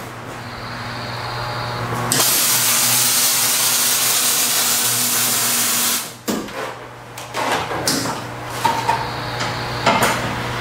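Welder's arc running in one steady hiss for about four seconds, starting and stopping abruptly, over a constant electrical hum. It is followed by a few light metal knocks and clatter.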